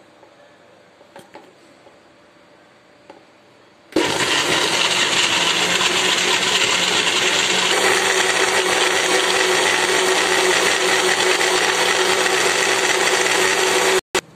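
Electric blender switched on about four seconds in, running steadily as it purees oats, dates, raisins, almonds, mango, milk and water into a smoothie, then cutting off abruptly near the end. Before it starts there are only a few faint clicks.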